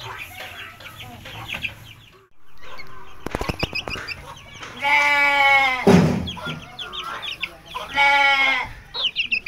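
Aseel chicks peeping in short high notes, one of them held in a boy's hands. Twice, about halfway through and again near the end, a longer, louder call from an adult farm animal sounds over the peeping.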